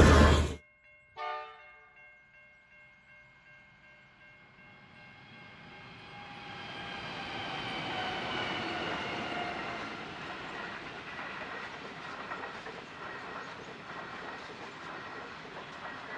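A passing passenger train. In the first half-second the carriages going over the crossing are loud and cut off suddenly. Then two Pacific National NR class diesel-electric locomotives approach and pass, their sound falling in pitch as they go by, and the passenger carriages follow with a rhythmic clickety-clack of wheels on the rails.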